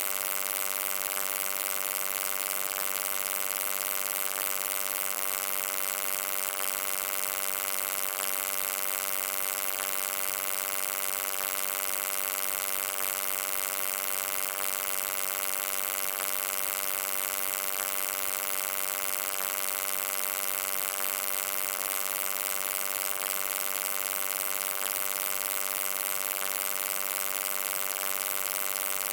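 Steady electrical hum: an even buzz of many stacked tones with a hiss above it.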